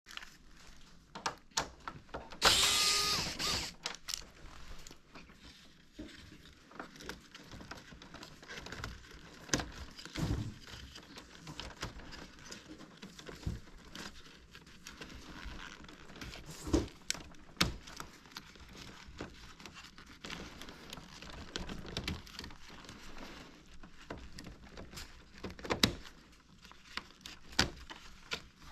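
Irregular clicks, knocks and taps of hard plastic parts being handled and unclipped while a Toshiba wall-mounted air conditioner's indoor unit is taken apart, with one louder rasping burst lasting about a second and a half, about two and a half seconds in.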